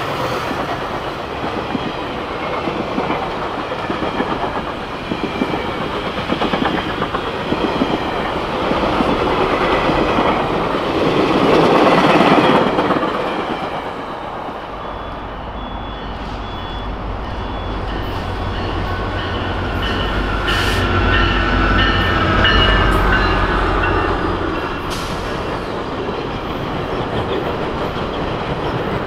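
GO Transit bilevel passenger coaches rolling past at track side, wheels clacking over the rail joints, loudest about 12 s in, then easing as the train clears. A second train follows with a low rumble that builds, and thin high wheel squeal comes and goes over it.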